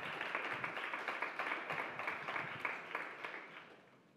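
Small audience applauding, the clapping dying away just before the end.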